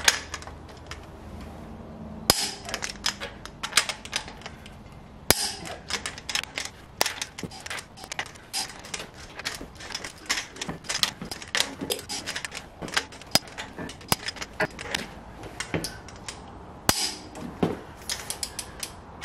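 Click-type torque wrench ratcheting on the cylinder head stud nuts of a 7.3 IDI diesel, a rapid run of ratchet clicks with a few louder, sharper clicks standing out, as each nut is double-checked at final torque.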